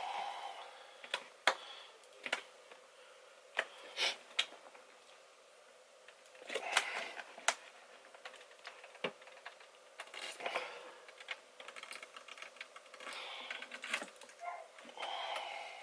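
Plastic headlight lens being pried off its housing: irregular clicks and snaps from the plastic and its clips, with short crackly stretches as the warm butyl sealant between the halves pulls apart.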